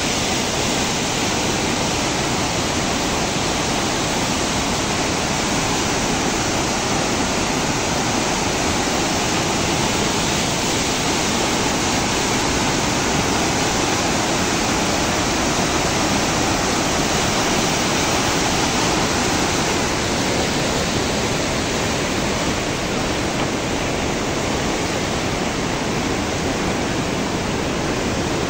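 Nakhu River in flood: a wide, muddy torrent of floodwater rushing steadily and loudly.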